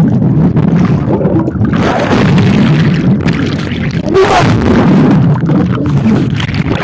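Swimming-pool water churning against a submerged camera's microphone: a loud, muffled underwater rumble with bubbles and splashes as a swimmer moves past.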